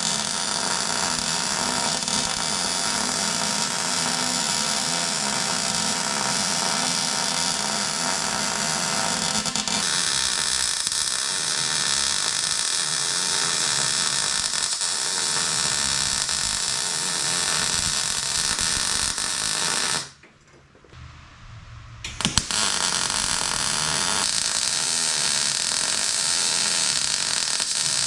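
Steady harsh noise of metalworking on steel tubing. It cuts out suddenly about twenty seconds in and starts again about two seconds later.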